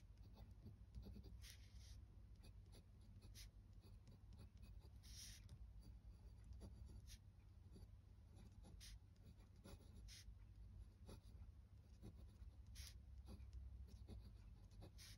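Glass dip pen nib scratching faintly across smooth paper as it writes in watercolour, in short strokes with gaps between them, over a low steady hum.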